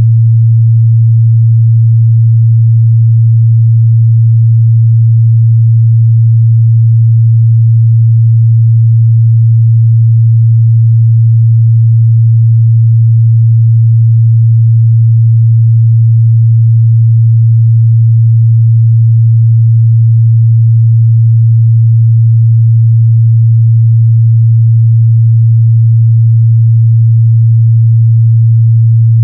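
A steady, loud 114 Hz sine-wave test tone, one pure low hum held without change.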